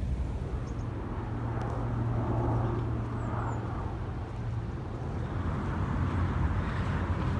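Outdoor ambience: a steady low rumble of distant traffic under an even hiss, with a couple of faint high chirps about three seconds in.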